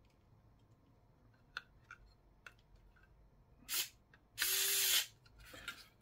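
Pen-style electric precision screwdriver driving a screw into a laptop SSD's metal mounting bracket: a short buzz a little past halfway, then a longer run of about half a second that stops abruptly. A few light clicks of metal parts come before.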